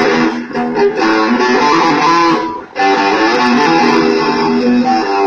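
Guitar being played in a sound check: a run of picked notes and strummed chords with a short break a little over halfway through, after which the playing starts again.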